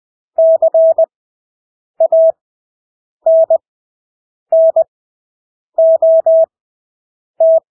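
Morse code (CW) practice tone keyed at 20 words per minute with Farnsworth spacing: one steady mid-pitched tone in short and long elements, dots and dashes. It sends about six characters, each followed by a long silent gap.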